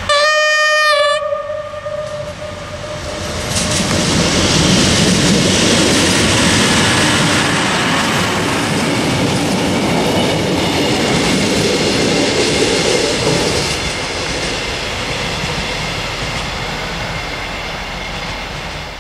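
Arriva class 628 diesel multiple unit sounding one short horn blast as it enters the station, then passing close by with its diesel engine running and its wheels clattering on the rails, fading away near the end.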